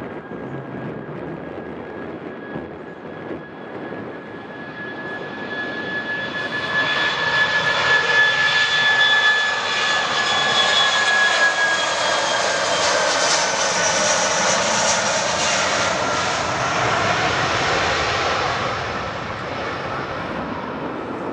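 Airbus A319-132's twin IAE V2500 turbofan engines at take-off power during the take-off roll: a steady high fan whine over a rushing roar that swells loudly as the jet passes, about halfway through, then eases off as it lifts off near the end.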